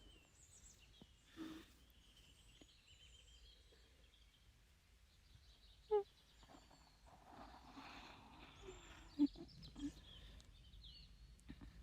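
Soft close-microphone breathing with a few brief sharp mouth sounds, over faint bird chirps in the background.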